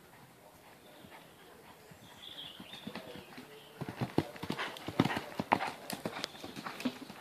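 Hoofbeats of a ridden horse on a dirt track, a quick uneven run of thuds that turns loud about four seconds in as the horse passes close.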